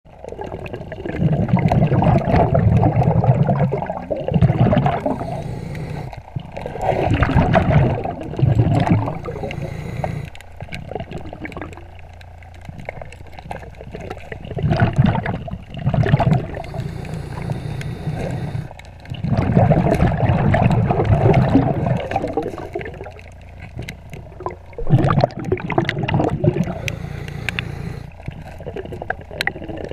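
Underwater scuba breathing: the diver's exhaled bubbles rushing out of the regulator in bursts of one to three seconds every several seconds, with a lower hiss of water noise between breaths.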